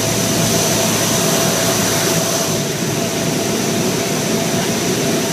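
Steady drone of a C-130 Hercules' four Allison T56 turboprop engines heard from inside the cargo hold, with a constant high whine over the noise.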